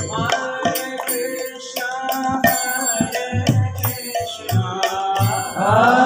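Kirtan music in a break between chanted lines: held harmonium notes over hand-drum strokes and kartal hand cymbals, with the group's chanting coming back in near the end.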